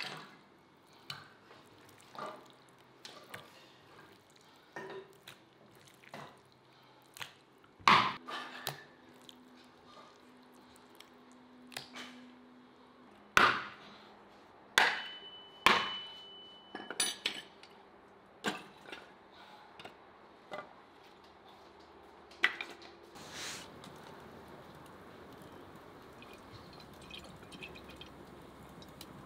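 Kitchen work: irregular knocks and clinks of utensils against dishes and pans. The loudest comes about eight seconds in, with several more sharp knocks between about thirteen and sixteen seconds and a brief ringing clink among them. Then it goes quiet to a low hiss.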